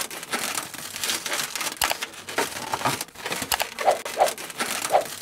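Latex modelling balloons rubbing and squeaking: a dense run of crackly squeaks, with three short higher squeaks in the last second and a half.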